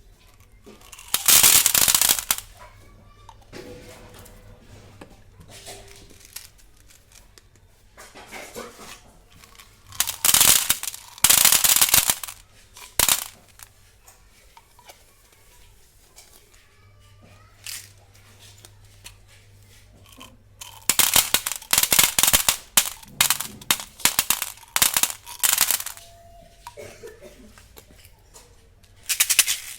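Plastic candy wrappers of Gems packets crinkling and tearing open in several loud bursts, with quieter rustling between them.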